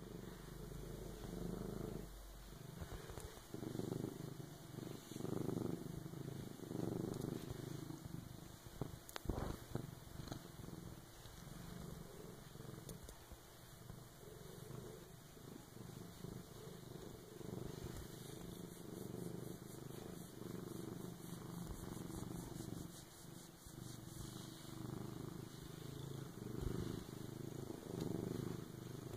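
A tabby house cat purring steadily while being stroked, the purr rising and falling about once a second. A brief soft knock about a third of the way in.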